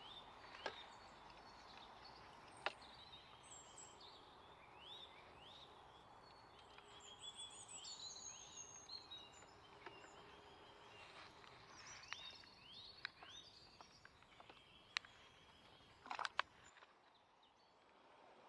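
Faint birdsong, many short rising chirps, with a few sharp clicks scattered through.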